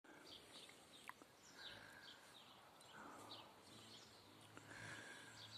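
Faint birdsong: small birds chirping over and over, very quiet, over a low outdoor hush.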